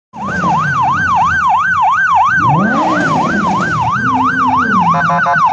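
Police car siren sounding a fast up-and-down yelp, about three sweeps a second, switching to a quicker choppy warble near the end.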